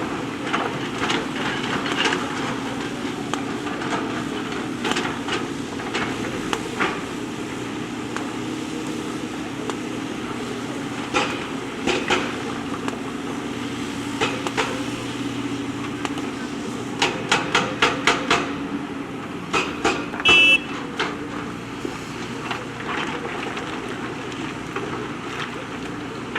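JCB backhoe loader's diesel engine running steadily under scattered clanks and knocks of the bucket working against stones. A quick run of knocks comes about 17 seconds in, and a brief high squeak about 20 seconds in.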